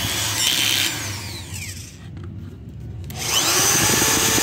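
Cordless drill-driver boring a twist bit into the edge of a wooden wardrobe panel. The motor winds down and nearly stops about two seconds in, then starts again shortly after three seconds and runs steadily at speed.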